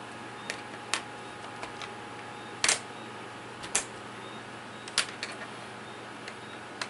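Scattered sharp clicks and taps of a small screwdriver working a screw in a plastic laptop screen bezel, irregular and a second or so apart, over a steady hiss.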